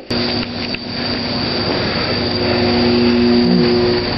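Steady low machine hum with two held tones, growing a little louder after about a second, over a constant high-pitched chorus of crickets.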